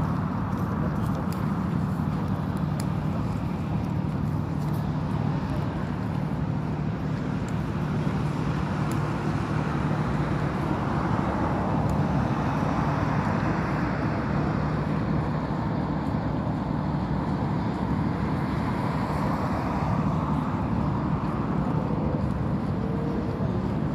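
Steady outdoor rumble like road traffic, with a constant low hum underneath and a few faint clicks in the first seconds.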